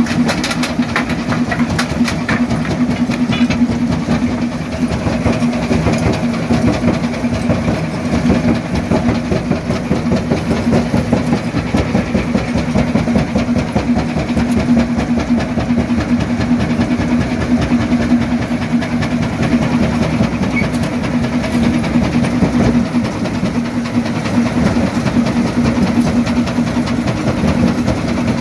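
Quarry primary jaw crusher running under load: a steady machine hum with continuous rattling and crunching of rock, and a few sharper cracks in the first few seconds.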